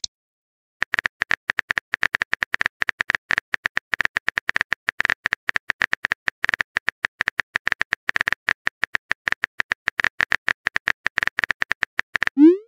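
Keyboard typing sound effect: fast, irregular clicks of a message being typed, starting after a brief silence and running for about eleven seconds. A short rising tone comes in just before the end.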